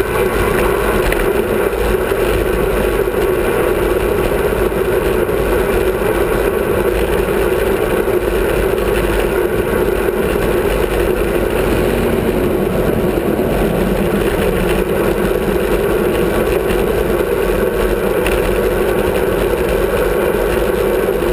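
Steady wind rushing over the microphone of a camera on a moving bicycle, mixed with road noise, unchanging throughout.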